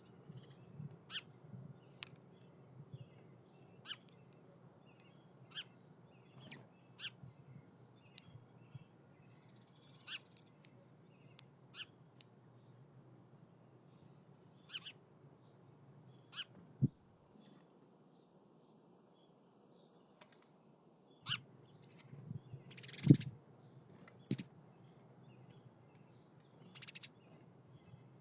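Bird calls: short, sharp high chip notes repeated at irregular intervals, with a few dull thumps in between, the loudest about two-thirds of the way through.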